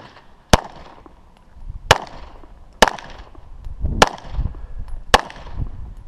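9mm EAA/Tanfoglio Witness Elite Limited Pro pistol firing five shots at an unhurried pace, about one a second. Each sharp crack is followed by a short echo.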